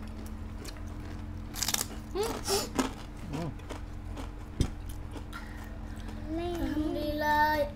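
Crunching bites and chewing of crispy kerupuk crackers, in short crackly bursts, with one sharp click about halfway through. Near the end a voice sings a few held notes.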